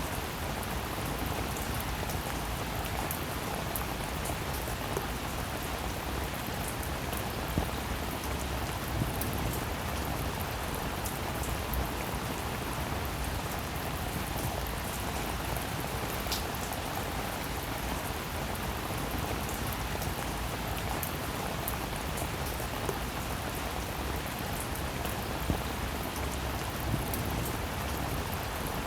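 Steady rainfall: an even hiss of rain with scattered sharper single drop ticks.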